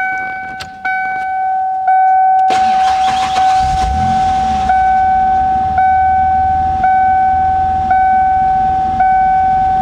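1992 Ford Explorer's 4.0-litre V6 cranking for a couple of seconds, catching, and idling after a fuel pump replacement. A dashboard warning chime sounds about once a second throughout.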